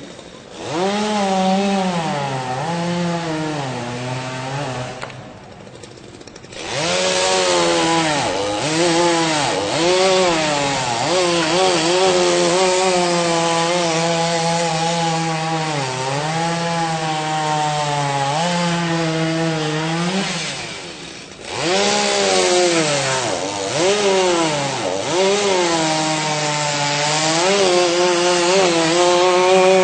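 Two-stroke chainsaw running at high revs and cutting into a tree, its engine pitch repeatedly sagging and recovering as the chain bites into the wood. Twice, about five seconds in and again around twenty seconds in, the throttle eases off briefly before the saw revs back up into the cut.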